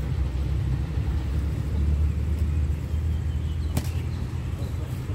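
Low steady rumble, with a single sharp click near the end.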